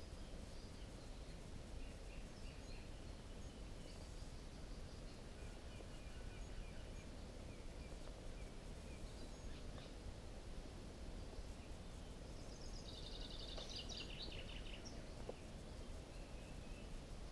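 Faint high bird chirps over a steady low background hiss, with a brighter run of rapid high chirps about thirteen seconds in that lasts a little over a second.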